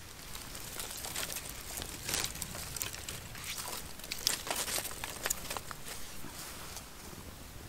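Dry tinder and small twigs crackling and crinkling faintly, with many short irregular snaps and ticks, as a campfire is being lit with a cotton-and-Vaseline starter.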